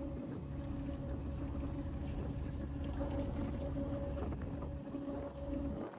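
Steady engine and road noise inside a slowly moving car: a low rumble with a constant hum.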